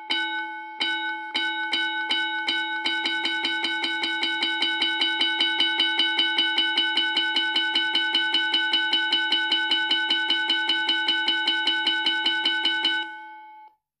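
Recorded school bell ringing from a school bell timer through a small speaker. A few spaced strikes speed up into a rapid, even ringing of about five or six strikes a second, which stops about 13 seconds in.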